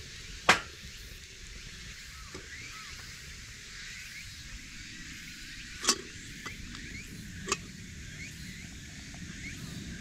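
Wood fire burning under a kettle, with one sharp pop about half a second in. About six seconds in, two metal clacks a second and a half apart, from fire tongs lifting the kettle off the grill.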